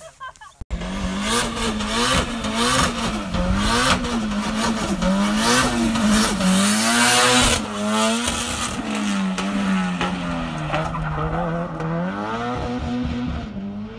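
Drift car engine revving hard, its pitch rising and falling about once a second as the throttle is worked through a slide, over tyres squealing and skidding. It starts suddenly about a second in.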